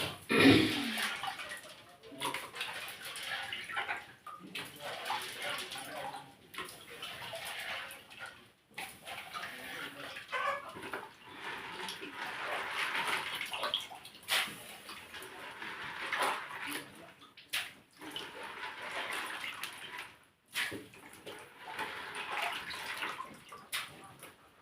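Running, splashing water, uneven in strength and breaking off abruptly several times.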